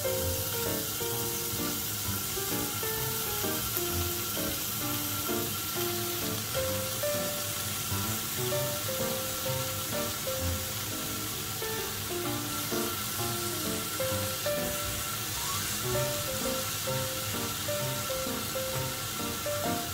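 Beef slices and green peppers sizzling steadily on a tabletop gas grill plate. Light background music with a stepping melody plays over it.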